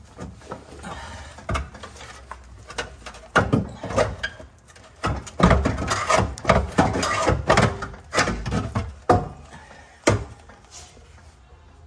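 Irregular knocks, clunks and scraping of parts being worked loose and handled by hand, densest and loudest from about five to nine seconds in.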